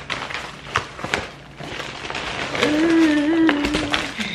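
Rustling and crinkling of a plastic mailer bag being handled and opened, with sharp crackles. Over the second half a voice hums a held, wavering note.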